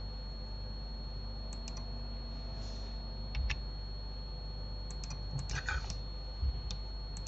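Computer keyboard keys and mouse buttons clicking in scattered taps, with a quick run of several clicks around five to six seconds in, over a steady low hum and a faint high whine.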